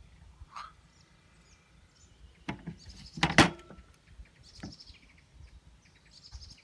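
A metal spoon clinking against a glass honey jar and glass bowl while thick honey is spooned out, a few sharp clinks with the loudest about midway. Birds chirp faintly in the background.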